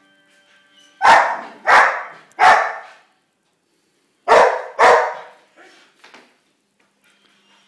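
Wheaten Terrier barking anxiously: three loud barks about a second in, then two more after a short pause, trailing off into a couple of softer barks.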